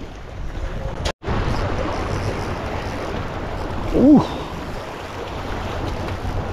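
Sea swell washing over a low rock ledge, with wind buffeting the microphone; the sound drops out for a moment about a second in. A short exclamation of "oh" about four seconds in is the loudest moment.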